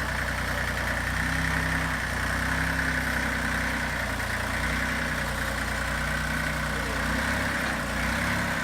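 Hinomoto tractor's three-cylinder diesel engine idling, running smoothly on its new water pump after restoration.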